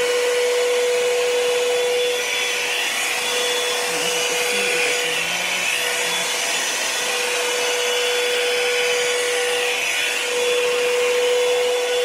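Revlon One-Step hair dryer brush running on its high setting: a steady motor hum over a rush of blown air as it is pulled through hair. The hum's tone weakens after about two seconds and comes back strong about ten seconds in.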